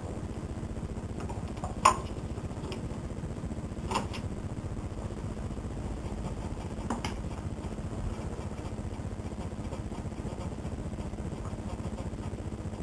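A floppy disk going into a Macintosh SE's 800K floppy drive and the drive starting to read it: a sharp clack about two seconds in, then fainter clicks about four and seven seconds in, over the steady hum of the running computer.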